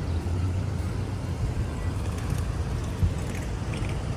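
Street traffic: a steady low rumble of road vehicles, with a single sharp click about three seconds in.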